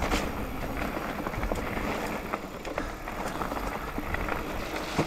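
Mountain bike descending a rocky dirt singletrack: tyres rolling and crunching over dirt and loose stones, with the bike rattling and clicking over bumps and wind noise on the microphone.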